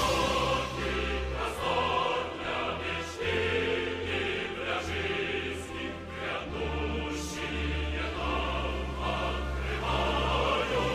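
Background music: a choir singing held notes over a steady bass, with a few sharp percussive hits.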